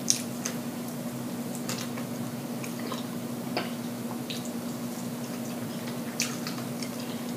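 Close mouth sounds of a person eating: scattered wet smacks and clicks while chewing and sucking food off her fingers, over a steady low hum.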